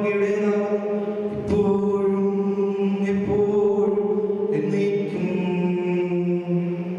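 Liturgical chant of the Holy Mass, sung in long held notes over a steady low sustained tone. The notes change about a second and a half in and again after about four and a half seconds.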